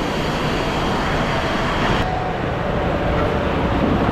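Steady, loud rushing noise of an indoor water park: water running and splashing, echoing in a large hall.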